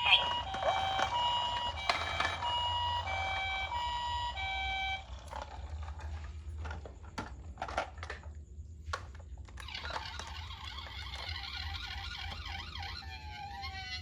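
Toy ambulance minicar's electronic siren sounding a two-tone high-low pattern, typical of a Japanese ambulance, for about five seconds, then stopping. A few sharp clicks and knocks follow. Near the end a siren that sweeps up and down in pitch starts.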